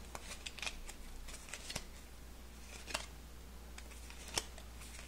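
Bicycle playing cards being pushed and flicked from hand to hand as they are spread out, soft rustling broken by a few sharp, irregular card snaps.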